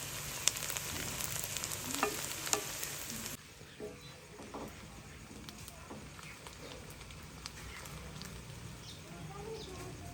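Food sizzling as it fries in hot oil, with a few sharp clicks over it. The sizzle stops abruptly about three seconds in, and quieter sound with scattered small knocks follows.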